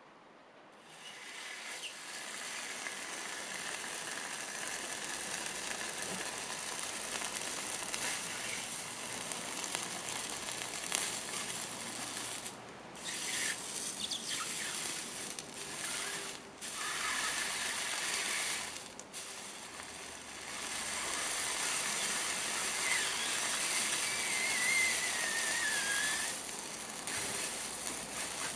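Steady crackling sizzle of glowing-hot metal burning into wet cat food, broken by a few abrupt short gaps. A faint wavering whistle falls in pitch about three-quarters of the way through.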